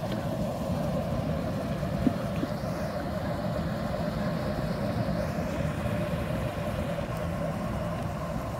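Propane burner running steadily under a large boiling stockpot: a steady low rumble with hiss. A single sharp tap about two seconds in.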